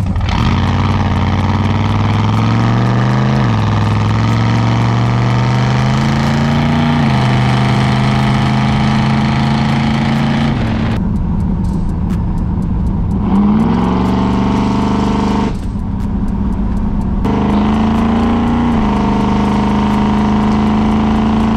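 1970 Plymouth Road Runner's V8 running through a custom-built exhaust while driving under acceleration. The note climbs slowly in pitch and drops sharply three times at gear changes, with a couple of stretches where it turns deeper and less sharp.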